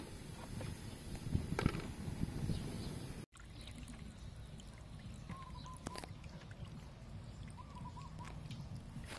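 Water sloshing and light knocks in a steel pan; after a sudden break about three seconds in, hands washing raw pork ribs in a steel bowl of water, with splashes and small clicks. A bird's short warbling call comes a few times in the background.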